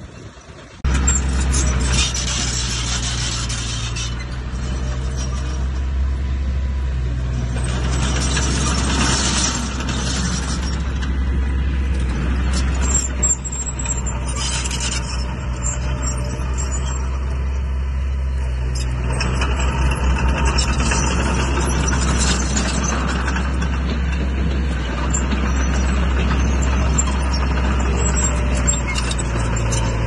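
Heavy diesel earthmoving machine running steadily with a low hum. The sound cuts in suddenly just under a second in, and stretches of rattling, scraping noise swell over it several times.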